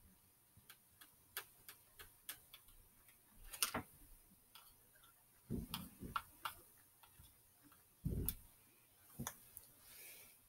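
Faint, irregular small clicks and taps of a makeup brush and paint being handled, with a couple of dull bumps about halfway through and about eight seconds in.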